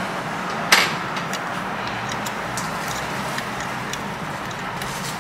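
Steady workbench background hiss with one sharp click about three-quarters of a second in and a few faint ticks after it.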